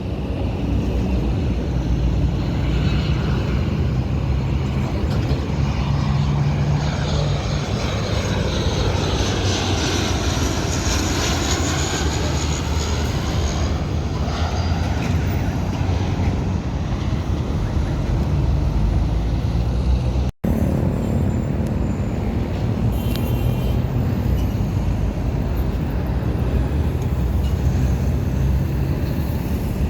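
Landing airliner's engines running loudly as the plane passes overhead, a steady rush of noise that swells and sweeps in pitch in the middle. The sound cuts out for a split second about two-thirds of the way through.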